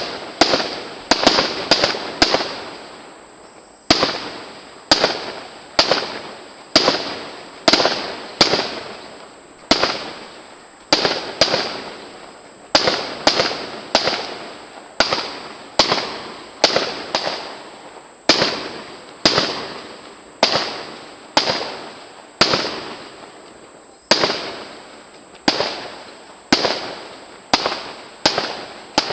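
Aerial firework shells bursting one after another, a sharp bang about every second, each trailing off in a long echo.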